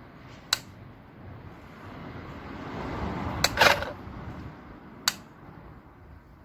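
A few sharp clicks of handling, one about half a second in, a close cluster around the middle with a short rustle leading into it, and one more about five seconds in, over a low steady background rumble.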